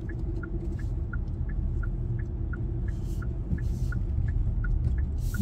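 Car's turn signal clicking in an even tick-tock, about three clicks a second, over the low steady road rumble inside the car's cabin.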